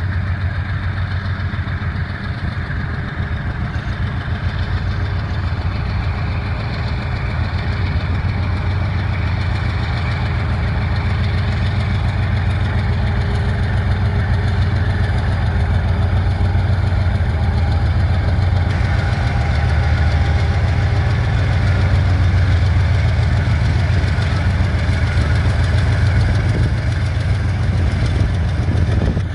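GE C36-7i diesel-electric locomotive's 16-cylinder diesel engine working under load as it pulls a freight train away, a steady low drone that grows louder as the locomotive draws near.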